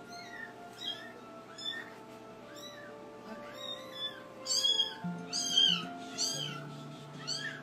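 Young kitten mewing over and over in short, high cries that rise and fall, about one a second at first, then louder and closer together in the middle. Background music with steady held notes runs underneath.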